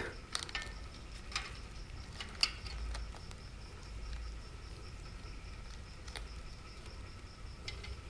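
Metal drive chain of an electric bike clicking and clinking faintly as it is worked by hand onto the rear wheel's sprocket: a few scattered clicks, the sharpest about two and a half seconds in, over a faint steady high tone.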